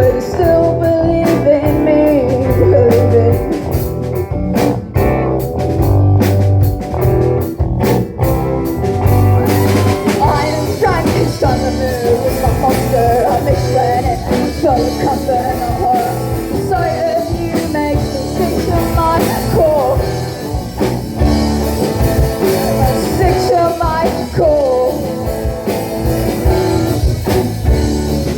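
Live rock band playing an instrumental passage: drums, bass and guitar, with a lead line of bending notes. Sharp drum hits carry the first nine seconds or so, then the sound thickens into a fuller wash.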